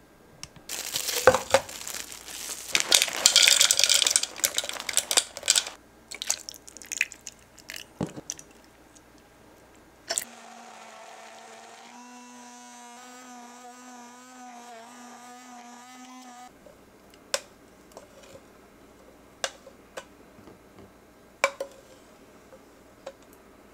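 Several seconds of loud crinkling and crunching. Then an immersion blender runs for about six seconds in a plastic beaker, blending a berry-and-banana smoothie: a steady hum that wavers in pitch and starts and stops abruptly. A few light clicks and taps follow.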